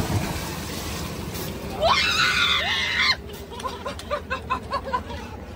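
Splash of a swimmer dropping into the lake, then a woman's loud, high-pitched scream for about a second, followed by quick short bursts of giggling.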